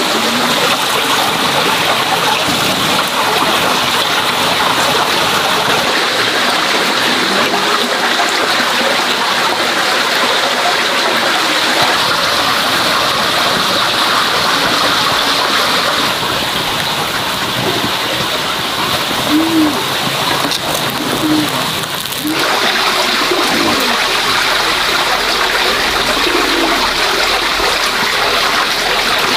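Pork sausages frying in a wok of hot fat: a steady sizzle with bubbling and spattering.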